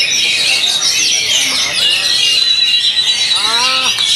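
Dense chorus of caged songbirds singing at once, an oriental magpie-robin (kacer) among them, full of rapid chirps and trills. A person's voice calls out briefly near the end.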